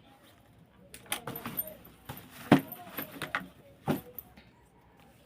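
A run of sharp clicks and light metallic jingling, loudest about two and a half seconds in.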